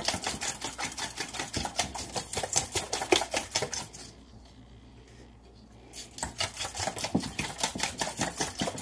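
Eggs and milk being beaten by hand in a stainless steel mixing bowl: quick, rhythmic clicking strokes of the utensil against the metal. The beating stops for about two seconds midway, then picks up again.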